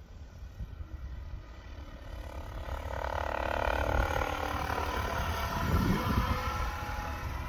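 Lince SE helicopter in forward flight, its motor and rotor whine growing louder as it approaches over the first half and staying loud, with a slight drop in pitch as it passes about six seconds in. A low wind rumble on the microphone lies underneath.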